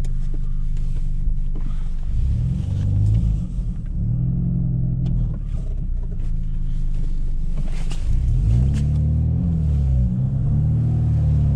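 BMW E46 320i's 2.2-litre straight-six through a very loud aftermarket exhaust, driven hard: the engine note climbs and drops several times as the car accelerates and shifts gears.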